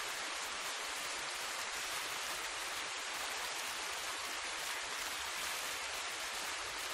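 Medium-sized waterfall: water falling and splashing in a steady, unbroken hiss, strongest in the high range.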